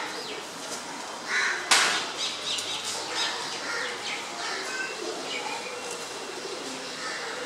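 Birds calling faintly in the trees, with one sharp crack just under two seconds in.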